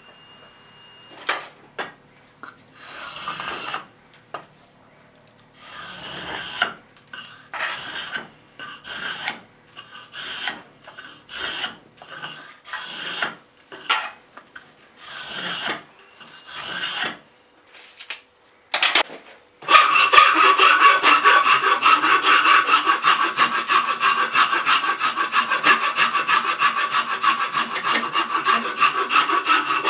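A blade shaving an ash hammer handle in separate scraping strokes, peeling off curled shavings. About two-thirds of the way in, a wood rasp takes over, scraped rapidly back and forth across the handle in a loud, continuous run.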